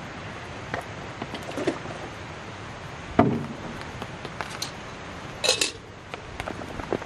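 Wood fire crackling and popping in scattered sharp clicks under a fire grill grate. A dull knock about three seconds in is the loudest sound, and a short quick run of sharper pops comes about five and a half seconds in.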